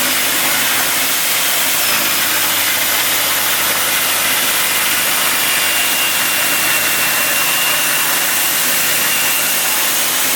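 Table saw running steadily as it cuts a half-inch plexiglass (acrylic) sheet, a loud even motor-and-blade noise. A faint high steady tone rises over it in the middle.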